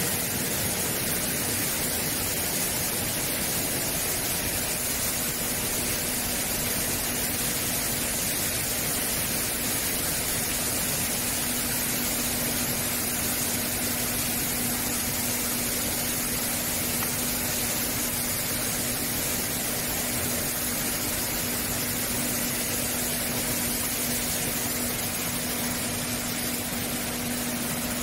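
Vegetable washing and sorting line running steadily: a constant motor hum with one steady low tone under an even hiss of spraying water.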